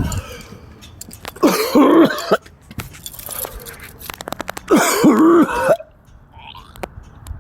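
A man coughing hard in two long fits, from smoke in a closed cargo box, with a rapid clatter of clicks between the fits.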